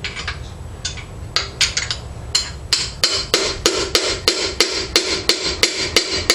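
Hammer blows on a stuck piston in a Pontiac 455 V8 block, driving the seized piston out of its bore: a few scattered strikes, then a steady run of sharp, ringing metal blows about three a second.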